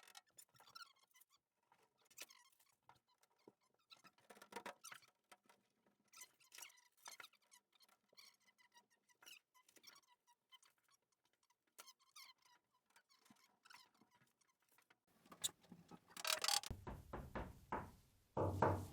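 Faint crinkling, ticking and tapping of foil-faced sound deadening mats being handled and pressed onto a van's bare metal panels, with a few louder rubbing and scraping sounds near the end.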